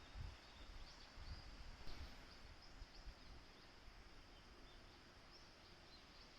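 Faint outdoor nature ambience: small high-pitched bird chirps scattered over a steady soft hiss, with a few low bumps in the first two seconds.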